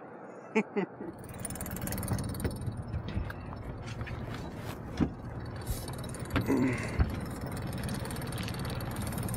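Boat's outboard motor running steadily, with scattered sharp clicks and a few knocks over it.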